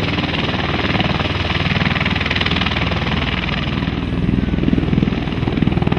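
Bell-Boeing V-22 Osprey tiltrotor in helicopter mode on the runway, its two turboshaft engines and proprotors running loud and steady with a rapid blade chop. The sound grows louder in the last couple of seconds, just before it lifts off.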